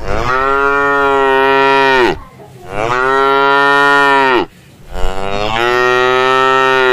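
Cow mooing: three long moos of about two seconds each, each dropping in pitch as it ends.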